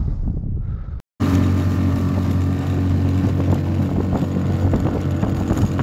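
Wind on the microphone, then after a brief dropout about a second in, a small boat motor running steadily at one constant pitch while the boat moves across open water, with wind noise over it.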